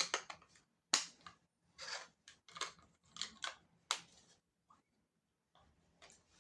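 Unboxing noises of packaging being handled: several sharp snaps and clicks mixed with short rustling, crinkling bursts, then a pause of over a second near the end.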